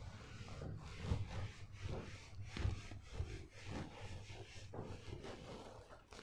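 Hand eraser rubbed back and forth across a whiteboard, wiping off marker writing in quick repeated strokes.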